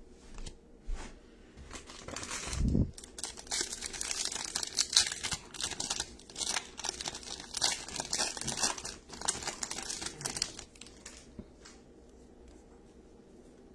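Crinkly wrapper of a pack of baseball cards being torn open and crumpled, a dense crackle lasting about eight seconds, with a dull thump near the start; after that only softer handling of the cards.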